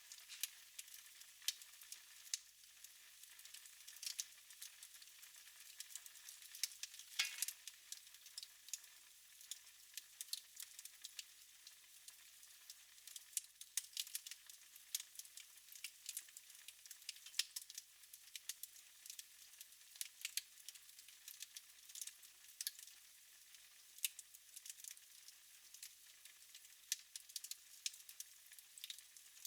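Wood fire in a fireplace crackling quietly: irregular sharp pops and snaps over a faint hiss, with a louder cluster of pops about seven seconds in.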